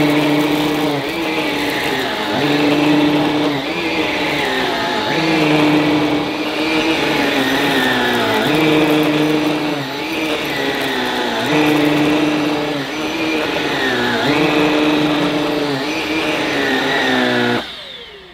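Halo Capsule X cordless stick vacuum running on carpet with its motorised floor head, its motor note dipping and recovering in a regular cycle of about a second and a half as the head is worked back and forth. Near the end it is switched off and the motor winds down.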